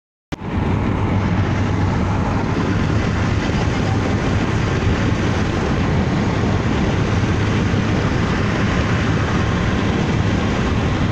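Steady rumble and rushing road and wind noise of a moving road vehicle, heard from inside, starting abruptly a moment in.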